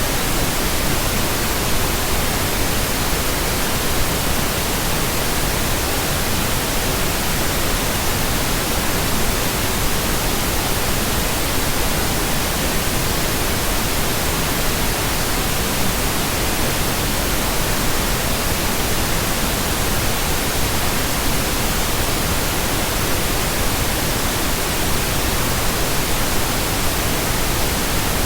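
Steady synthetic pink noise: an even, unchanging hiss with no tones or breaks.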